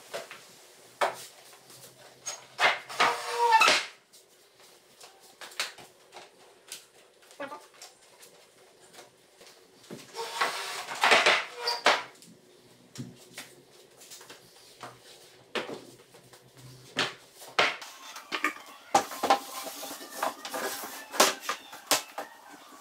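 A wooden slatted sofa bed being handled and pulled out into a bed: many separate wooden knocks and clicks, with three longer spells of scraping and clattering, about three, eleven and twenty seconds in.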